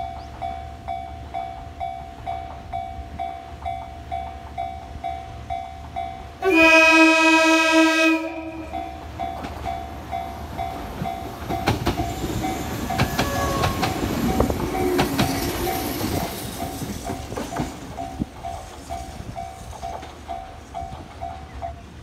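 Japanese level-crossing warning bell ringing in a steady beat of about one and a half strikes a second. A little over six seconds in, the Kumoya 443 inspection electric car gives one loud typhon air-horn blast of nearly two seconds, then the train passes with a run of wheel clatter and rumble that swells and fades. The crossing bell stops near the end.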